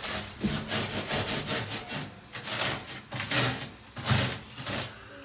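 Hand blade carving styrofoam: quick, repeated scraping and sawing strokes, about two a second, as the foam is shaped into rock texture.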